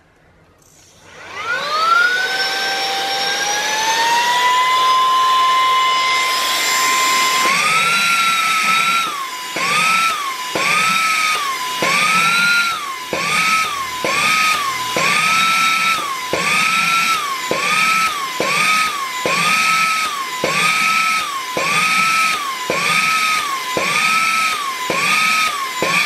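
A small handheld vacuum-blower motor switches on, its whine climbing over a few seconds to a steady high pitch. With the nozzle held on a weighted box to lift it by suction, the whine then rises and dips in pitch about once a second, with a small click at each change.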